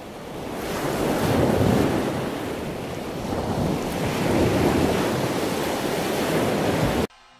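Ocean surf washing over rocks along a rocky shoreline, with wind. The rushing noise swells twice and cuts off suddenly near the end.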